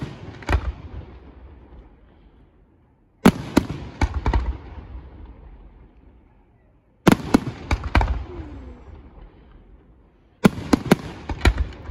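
Aerial firework shells bursting in volleys: a cluster of several sharp bangs about every three and a half seconds, four times, each followed by a rumbling echo that dies away.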